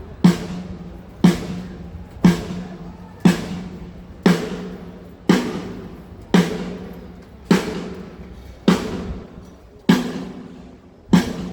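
A single drum of a drum kit struck once about every second, the hits spacing out a little toward the end, each one ringing out and dying away before the next: one drum being checked on its own during a sound check.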